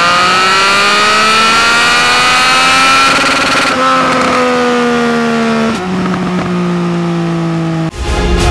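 Triumph Speed Triple RS 1050 inline-three engine revving, its pitch climbing for about three seconds, then dropping and easing off. It steps down again to a lower, steady note about six seconds in.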